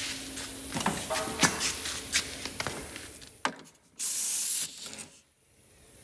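Brass quick-connect coupler on a compressed-air hose snapped onto the air inlet of a Hypertherm Powermax 45 plasma cutter: a sudden sharp hiss of escaping air lasting well under a second, about four seconds in, cut off as the coupling seats. Before it come light handling clicks and rustling.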